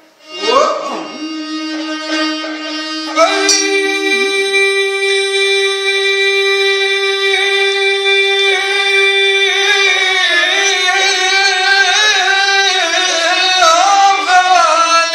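Bedouin rababa, a single-string spike fiddle with a square metal box body, bowed with a man singing an 'ataba over it. About three seconds in a long sung note sets in and is held, then wavers in melismatic ornaments through the second half.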